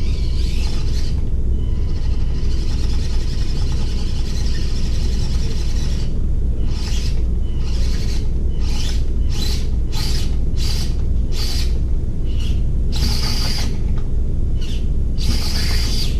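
Axial SCX24 1/24-scale RC crawler's small electric motor and drivetrain whining as it climbs a steep ramp. The whine is steady at first, then from about six seconds in breaks into a rapid series of short throttle bursts as the truck struggles for traction. A steady low rumble runs underneath.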